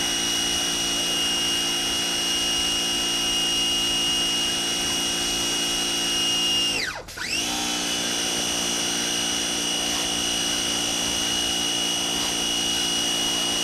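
Electric pressure washer motor running with a steady whine. About halfway through it winds down almost to a stop, falling in pitch, then spins straight back up to speed.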